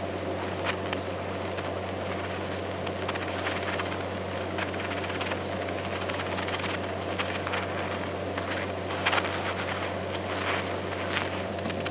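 Stick (shielded metal arc) welding: the arc crackles and sputters irregularly over a steady electrical hum.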